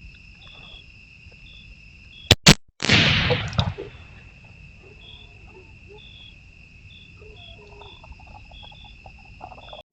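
Night insects trilling steadily, cut across about two and a half seconds in by a rifle shot: two sharp cracks, then a loud blast that dies away over about a second.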